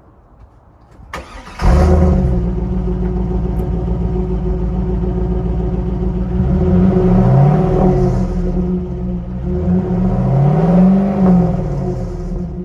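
2002 Pontiac Trans Am's LS1 V8 started through its exhaust: a brief crank about a second and a half in, then it catches and idles loudly. It is revved twice, each time rising and falling in pitch, around the middle and again near the end.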